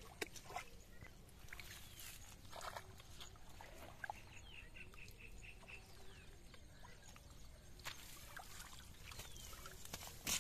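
Faint splashing and dripping of water as a cast net and its lead sinkers are drawn up out of shallow water, with scattered short splashes and clicks.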